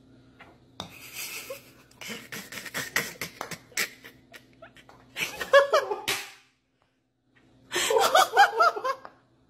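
A person laughing hard in several bursts, loudest about halfway through and again near the end, with short broken sounds and a few light clicks in the first half.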